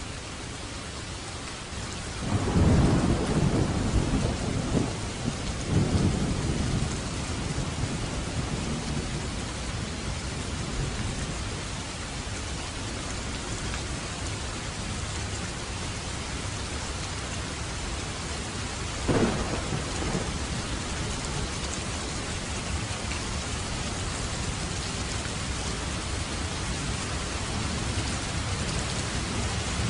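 Steady heavy rain with thunder: a loud rolling rumble of thunder starts about two seconds in and lasts several seconds, and a short sharp crack of thunder comes past the middle.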